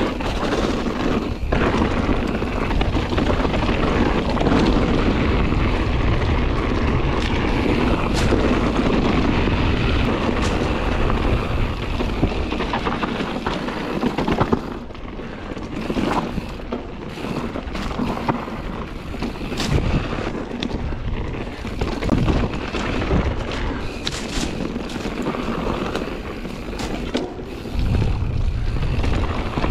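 Ride noise of a Scott Ransom 900 mountain bike descending a dirt singletrack: wind rushing over the microphone, tyres rolling over the dirt, and scattered knocks and rattles from the bike over rough ground. The wind rush drops about halfway through, and the separate knocks stand out more after that.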